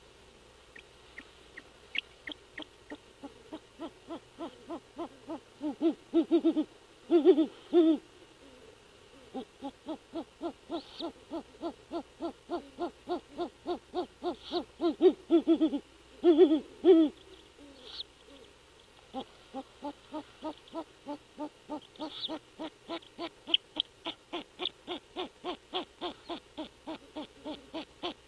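Great horned owls calling: a long run of short, evenly spaced low hoot notes, about three a second, swelling louder twice along the way.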